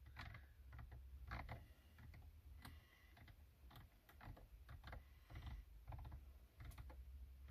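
Near silence with faint, irregular light taps of a fingertip on a car infotainment touchscreen while it scrolls through a list, over a low steady hum.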